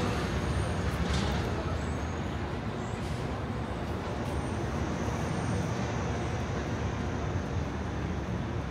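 City street traffic: a steady rumble of passing cars and buses, a little louder at the start.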